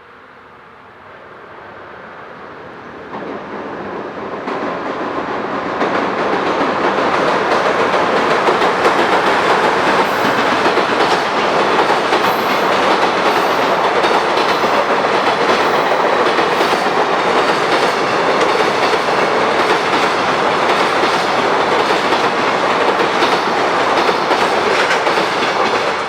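Freight train hauled by a JR Freight EH500 electric locomotive approaching and rolling past close by. The noise builds over the first six seconds, then holds steady and loud.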